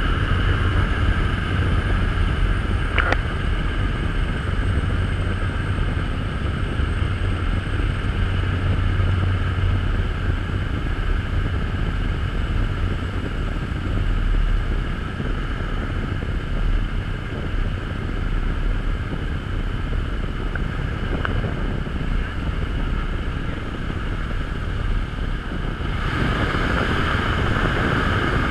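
Steady drone of a propeller jump plane's engine heard inside the cabin, a deep rumble with a buzzing whine above it. It grows brighter and louder near the end, when the jump door is open and the slipstream comes in.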